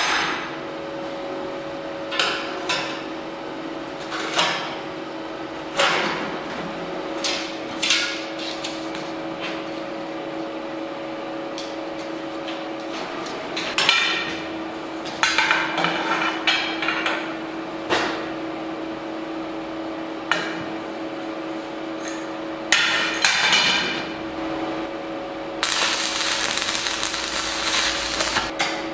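Hammer knocks on steel, irregular single taps and short clusters, each with a brief metallic ring, over a steady background hum. Near the end a steady rushing machine noise starts.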